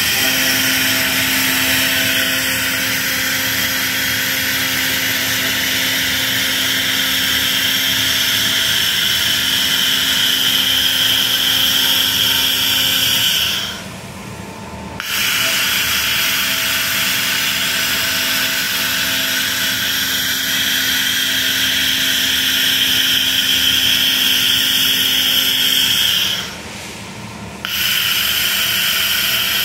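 LCW1500 handheld fiber laser stripping rust from a steel tube: a loud, steady hiss with a high buzzing band and a low steady tone. It cuts out twice, for about a second each, about halfway through and near the end, as the beam stops firing, leaving a quieter hum.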